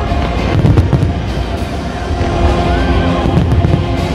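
Fireworks bursting in quick succession, a rapid string of bangs, over loud music.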